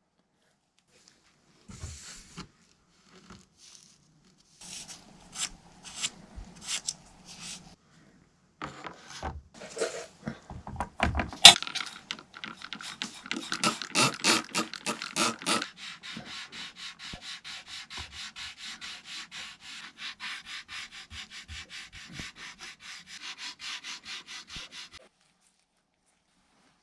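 Back-and-forth hand rubbing on a small diecast model part, like sanding or scrubbing. The strokes come unevenly at first, then settle into a steady rhythm of about two to three strokes a second that stops suddenly near the end.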